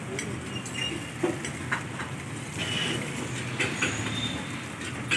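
Metal tongs clicking and scraping on a large flat griddle as parathas are turned, a few scattered clicks over a steady low background rumble.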